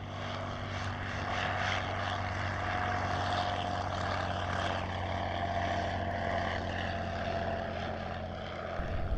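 1917 Bristol Fighter biplane in flight, its piston engine and propeller making a steady drone as it passes.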